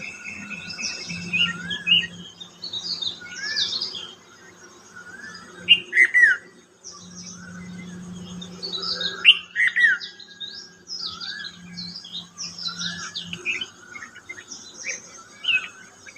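Morning chorus of several birds chirping and singing at once. One bird repeats a short rising-and-falling whistled note about once a second, and a few loud, sharp downward-sliding calls come about six and nine seconds in.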